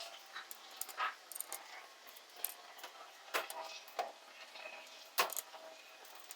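Metal hand tools and parts clinking and knocking, about five separate sharp clinks spread a second or so apart, during reassembly of a monster truck's third member (differential).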